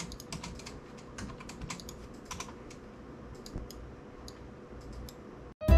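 Typing on a computer keyboard: quick runs of key clicks, thinning out after the first couple of seconds, over a faint steady hum.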